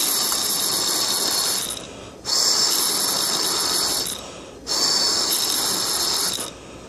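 Breath blown in three puffs of about two seconds each through a small turbine water-flow sensor, its impeller whirring at a high pitch during each puff. The blowing turns the sensor as if water were flowing, to test the controller's water-volume count.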